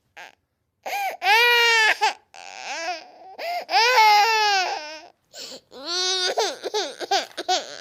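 Baby crying: two long, high wails in the first half, then a run of shorter, choppy sobbing cries.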